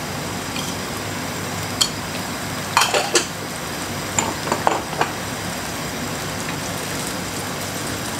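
Corn fritters shallow-frying in hot oil in a frying pan, a steady sizzle. A handful of clinks and knocks of utensils against the pans come about two to five seconds in.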